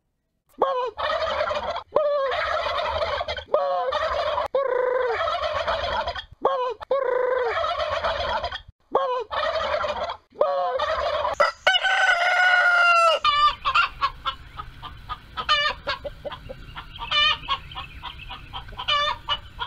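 Poultry calls: a run of loud pitched calls, each about a second long with short breaks between them. About twelve seconds in comes one longer call that falls in pitch, then a string of short quick calls over a low steady hum.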